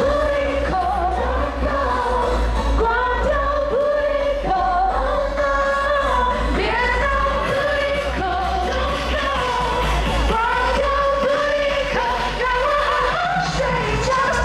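Live pop music over a concert sound system: a sung melody with long held notes over a heavy, steady bass.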